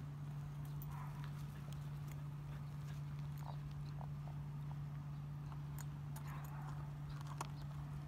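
A steady low hum under scattered light clicks and taps.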